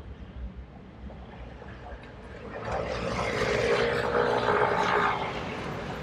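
A motor vehicle passing close by: a steady engine hum that swells about two and a half seconds in and eases off near the end, over the low rumble of the ride.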